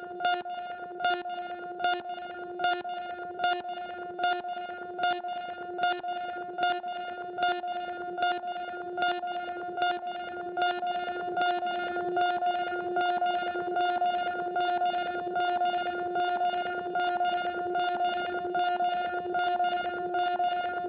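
A steady electronic tone droning under short, sharp clicks that repeat evenly a little faster than once a second, like a mechanical tick set against a hum; the drone grows slightly louder in the second half.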